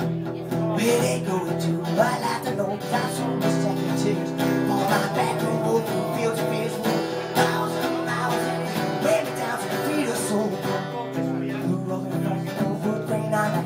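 Acoustic guitar played live, its chords picked and strummed in a song.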